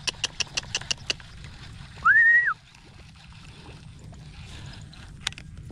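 A quick run of sharp clicks, about six a second, that stops about a second in. Then, about two seconds in, one short whistle that rises to a held note and drops away. It is the loudest sound here.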